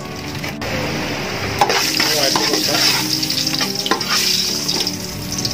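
Whole spices (cardamom, cinnamon, cloves, mace) sizzling in hot sunflower oil in a large metal pot while a spoon stirs them, with a few scrapes and knocks of the spoon on the pot. The sizzle grows louder about a second and a half in.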